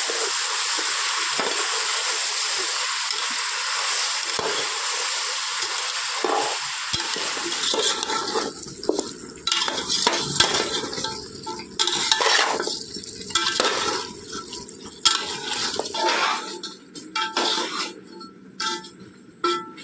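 Chicken pieces frying in masala in an aluminium pot, sizzling steadily, then a steel ladle stirring and scraping against the pot in irregular strokes from about eight seconds in.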